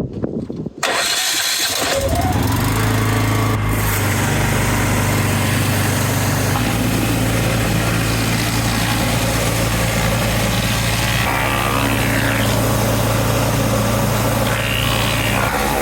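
Engine-driven pressure washer running steadily, a low engine hum under the hiss of the high-pressure jet cleaning concrete paving slabs. It starts suddenly about a second in.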